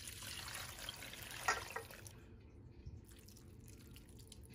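Thick chili and soy seasoning sauce poured from a bowl into a stainless steel pot over crab pieces and onions, splashing and trickling for about two seconds before it stops.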